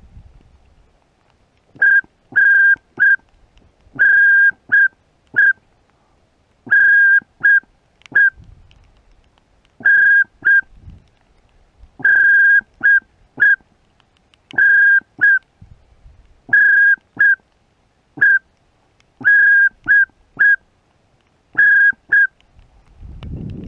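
Duck whistle call being blown in repeated short sequences, each a longer steady note followed by two or three quick toots, about every two and a half seconds, to call ducks in.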